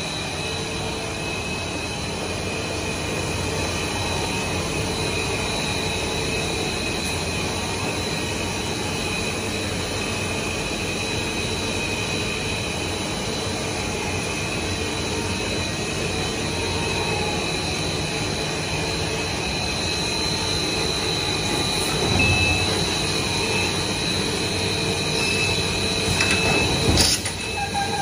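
Stretch film machine running, with its winder turning rolls of film: a steady mechanical drone with high, steady whines over it. A couple of knocks come in the latter part.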